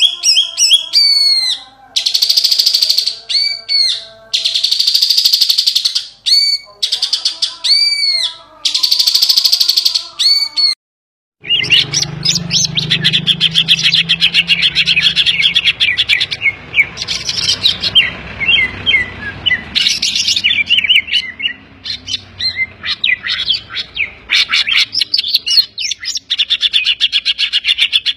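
Cucak ijo (green leafbird) singing loudly. The song is full of rapid high chattering and arching notes, including mimicked calls of other birds. About eleven seconds in there is a brief silence, then a dense, continuous warbling song over a low hum.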